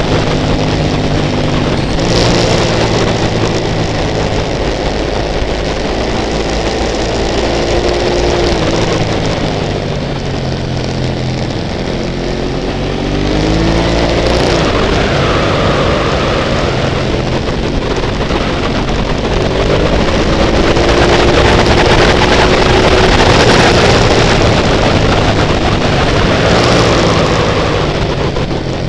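Sport bike engine running at speed, its revs rising and falling several times as it rides through the bends, over a constant rush of wind and road noise.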